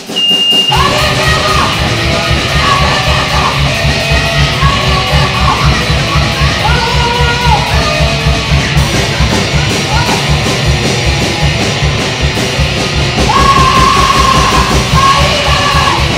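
A live fastcore punk band playing loud and fast, with pounding drums, distorted guitar and shouted vocals, kicking in abruptly at the start.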